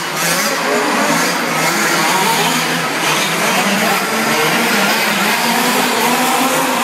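Several radio-controlled 4x4 off-road cars racing, their motors whining together at shifting pitches as they speed up and slow down.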